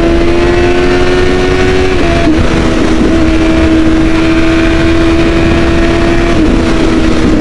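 Kawasaki ZX-10 1000 cc inline-four sportbike engine pulling hard at high revs while riding. The note climbs slowly, breaks briefly about two seconds in, then holds nearly steady, with a slight dip near the end.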